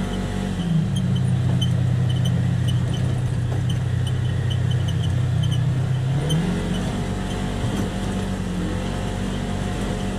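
Polaris Ranger XP 1000's twin-cylinder engine heard from inside the cab while driving: a steady drone that drops in pitch about a second in as the vehicle slows slightly, then climbs back around six seconds in as it speeds up again.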